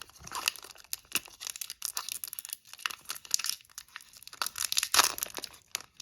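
Wrapper of a trading card pack crinkling and being torn open, in irregular rustling bursts. The loudest comes about five seconds in.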